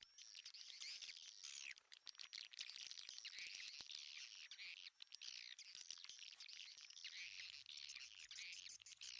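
Swiftlets twittering: a dense, continuous chatter of quick downward-sweeping chirps, with sharp clicks throughout.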